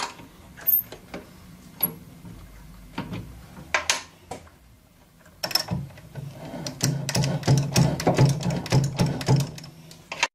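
Worm-type hob cutting the teeth of a small spur gear on its finishing passes: scattered metallic clicks and taps at first, then about halfway in the machine runs with a low hum and a fast metallic clicking of the cutter, which grows louder.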